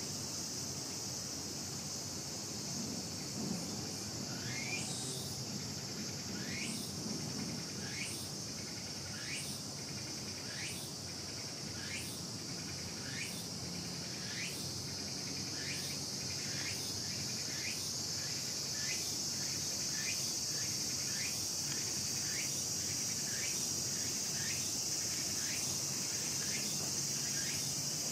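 Steady high-pitched insect drone, with a short rising chirp that repeats about once a second and comes quicker in the second half.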